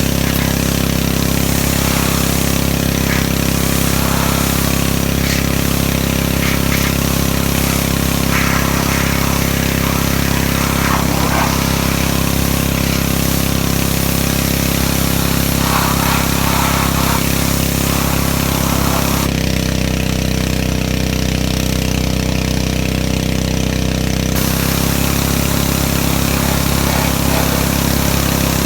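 Petrol pressure washer running steadily, its engine under the hiss of the water spray. Past the middle the hiss drops out for about five seconds while the engine keeps running, then comes back.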